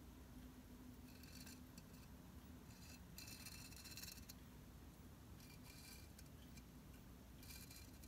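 Faint scratchy rasps of a Mayco Designer Liner bottle's applicator tip dragging across a bisque mug as glaze is squeezed out in a line, coming in several short stretches over near silence.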